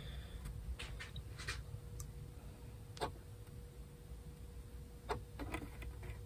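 Faint, irregular light taps and clicks of fingertips pressing on a bowl-back mandolin's cracked wooden top to level it for gluing, over a faint steady hum.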